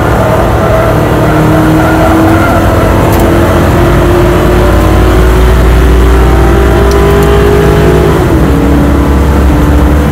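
Lincoln Mark VIII race car's 4.6-litre DOHC V8 heard from inside the cabin under throttle, its note slowly climbing, then dropping in pitch about eight seconds in and running on lower. A steady low road and wind rumble lies underneath.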